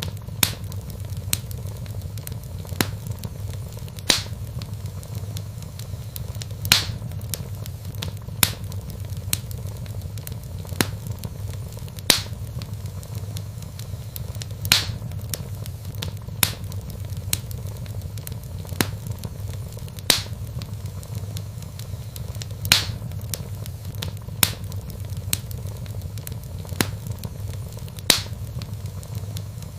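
Wood fire burning in a fireplace, with sharp crackles and pops every second or two, some louder than others, over a steady low rumble of the flames.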